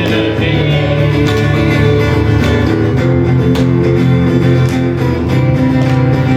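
Worship music: a band playing steadily with guitar.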